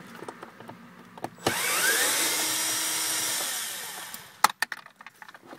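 Cordless screwdriver running for about two and a half seconds to back out a screw: it spins up with a rising whine, then winds down and stops. A few sharp clicks follow just after.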